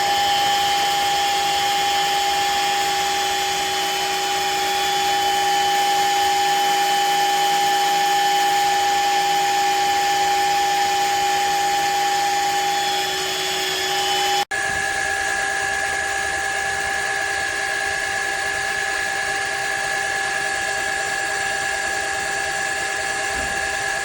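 Shark HydroVac wet-dry vacuum mop's motor running with a steady high whine. About fourteen seconds in it breaks off for an instant and runs on with a slightly different pitch.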